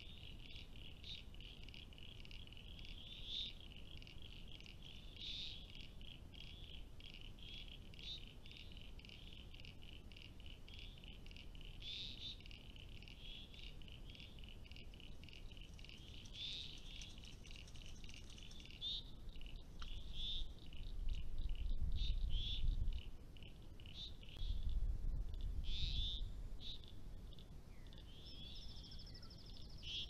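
A faint, steady chorus of frogs calling in rapid pulses at the dam, with scattered bird calls over it. About two-thirds of the way through come two spells of low rumble, the loudest sounds.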